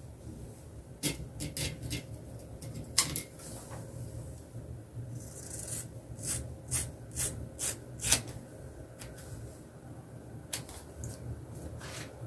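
Scissors cutting through a gathered lock of long hair: short snips in bunches, with a run of about six snips, roughly two a second, in the middle.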